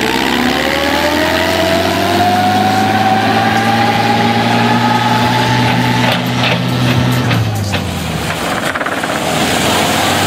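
Small tractor engine working under load while pulling, its pitch rising steadily for about six seconds. After that the sound changes: a few sharp clicks, and the engine note drops away.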